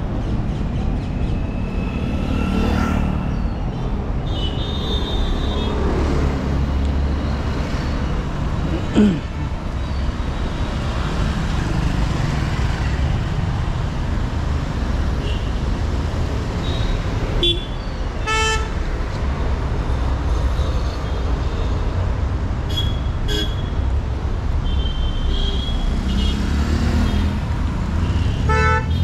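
Street traffic: a steady rumble of engines and tyres, with car horns honking briefly several times. There is a short loud falling sound about nine seconds in.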